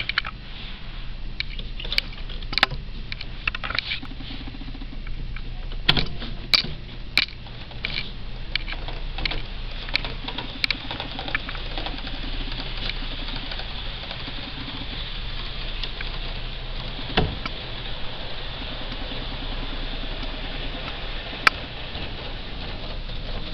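A real train cab's power handle being notched by hand to drive a model railway: sharp metal clicks, several in the first few seconds and a couple more later. Under them runs a steady light rattle, the model train running on its track.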